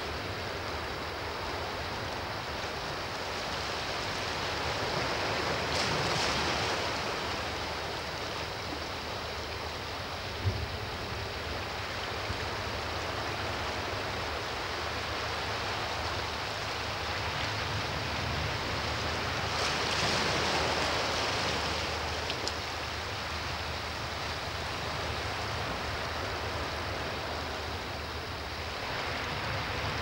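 Small sea waves washing and lapping among shoreline rocks: a steady wash of surf that swells up about six seconds in and again about twenty seconds in.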